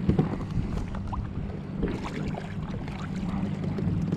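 Sea water lapping and sloshing against plastic kayak hulls, with wind buffeting the microphone and a few small splashes and knocks.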